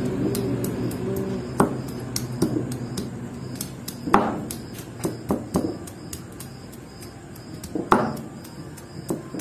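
Garlic cloves being pounded with a hand-held stone block on a flat stone grinding slab (sil-batta): about eight irregular knocks of stone on stone, the loudest about four and eight seconds in.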